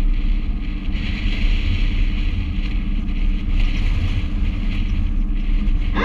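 LM 24 motorsailer's engine running steadily under way, a low hum, with a hiss of wind and water over it from about a second in.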